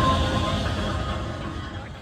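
Techno music fading out steadily.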